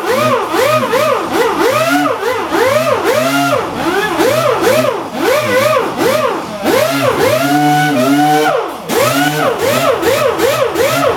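Orbital sander with a dust-extraction hose, sanding filler on a plastic car bumper. Its motor pitch rises and falls in quick swoops, about three times a second, as the pad is pressed and moved over the bumper.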